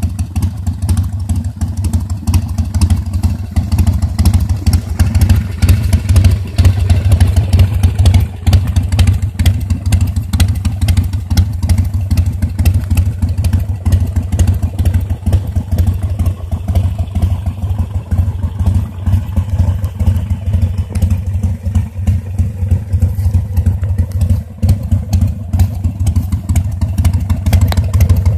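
Harley-Davidson Sportster 1200's air-cooled V-twin, fitted with a Screamin' Eagle engine kit, idling steadily with a loud, low pulsing exhaust note.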